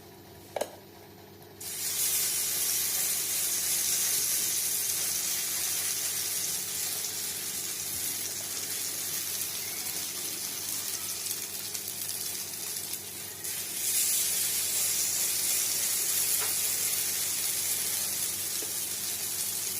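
Grated-potato and egg batter sizzling in hot oil in a frying pan. The sizzle starts suddenly about a second and a half in as the batter goes into the oil, holds steady, and grows louder again about two-thirds of the way through.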